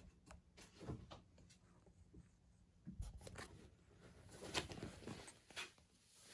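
Soft, irregular rustling and scratching as cats paw and push against a collapsible fabric pop-up cat tent, with a denser cluster of scratches a little past the middle.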